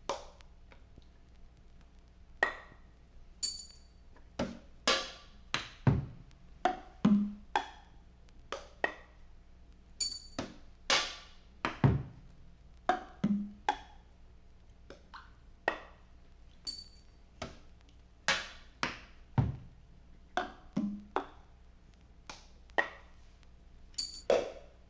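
Sparse, irregular percussion: knocks like a wood block and drum strikes, each with a short ringing tone, about one or two a second, with a deeper thud roughly every six to seven seconds, in an experimental improvised piece.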